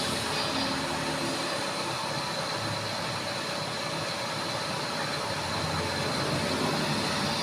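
Drilling machine running steadily, a constant mechanical hum and hiss while boring a flange.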